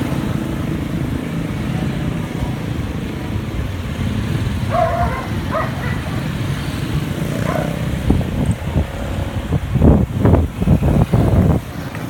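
Road traffic heard from a moving bicycle: a steady low rumble of cars and motorcycles. A few short higher-pitched sounds come about five seconds in, and a run of loud, uneven rumbling surges comes near the end.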